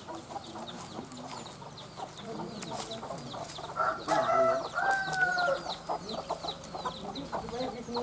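A rooster crows once, about four seconds in, over steady chirping of small birds and footsteps shuffling over dry leaves on a dirt path.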